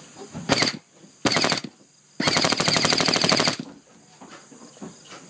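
Airsoft gun firing close by on full auto in three bursts: two short ones, then a longer one of over a second, each a rapid even rattle of shots.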